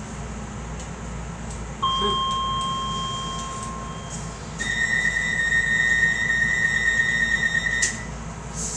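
Docklands Light Railway train's door signals while stopped at a station. A single electronic chime about two seconds in rings and fades. A few seconds later comes a steady, higher warning tone lasting about three seconds, typical of the door-closing alarm, which cuts off with a clunk as the doors shut.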